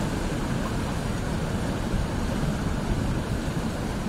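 Hurricane-force wind: a steady, unbroken low rumble of wind noise, with gusts buffeting the microphone.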